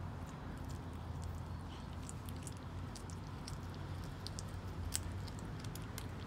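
Kitten chewing raw meat off the floor: a scatter of small, irregular wet clicks and smacks, over a steady low hum.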